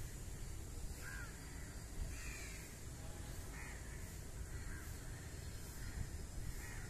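A crow cawing, faint: a series of short caws about one a second, over a steady low outdoor background noise.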